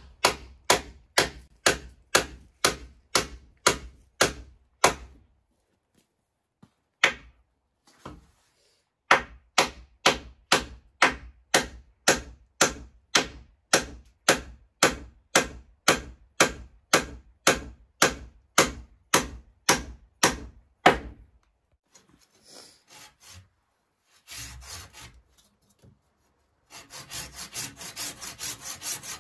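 Hand saw cutting through a wooden pole with steady back-and-forth strokes, about two to three a second, pausing briefly twice. Near the end the strokes turn quicker and lighter.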